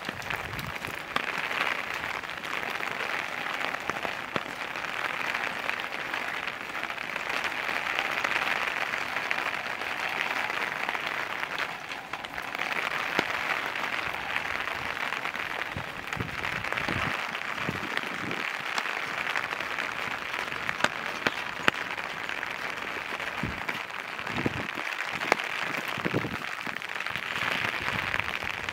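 Steady rain pattering, a dense hiss full of small drop ticks that swells and eases now and then.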